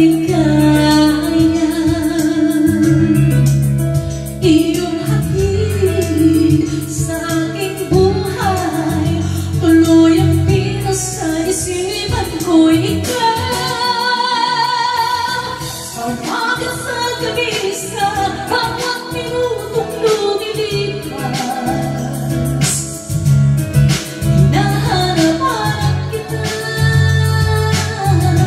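A woman singing karaoke into a handheld microphone over a backing track, her voice amplified through the room's speakers. About halfway through she holds a note with vibrato.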